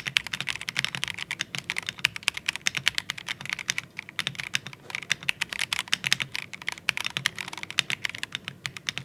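Fast typing on an AKKO PC98B Plus mechanical keyboard: a rapid, steady stream of key clicks, many keystrokes a second.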